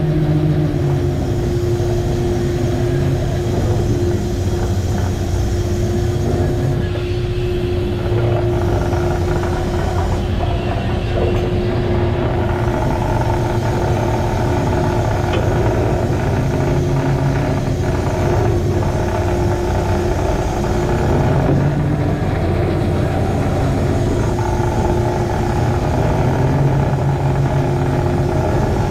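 Crab boat's engine and deck machinery running steadily, with a constant low rumble and a steady whine, over the wash of rough sea along the hull.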